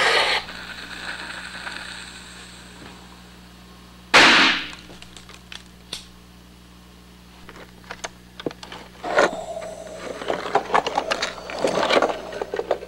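Gunfire sound effects for a toy-soldier battle: one loud shot about four seconds in that dies away quickly, then a run of rapid cracks and clatter in the last five seconds.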